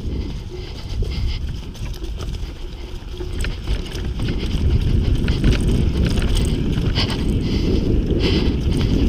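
Mountain bike rolling fast down a dirt forest trail: wind buffeting the bike-mounted camera's microphone over tyre rumble, with scattered clicks and rattles from the bike on rough ground, louder in the second half.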